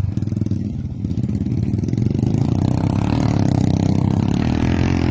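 Motorcycle engine running under load, easing off about a second in, then revving up and holding at higher revs.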